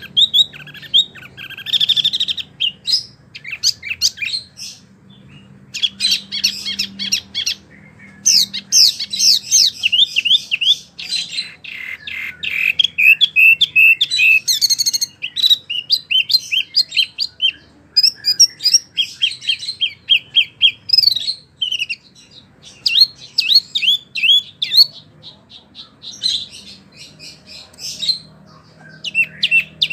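A wambie mini songbird singing vigorously, with rapid chirps and quick rising trilled phrases in long bursts broken by a few short pauses. A faint low hum runs underneath.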